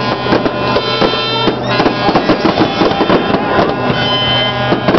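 Music playing: reedy melody lines over a steady low drone, the drone cutting off near the end.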